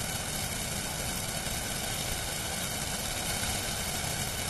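Steady rushing noise of a swollen, fast-flowing river in flood.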